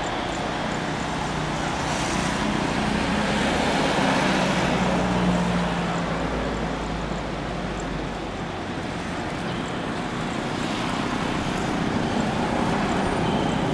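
Jet engines of a Boeing 777 running at taxi power as the airliner taxis, a steady noise with a faint low hum.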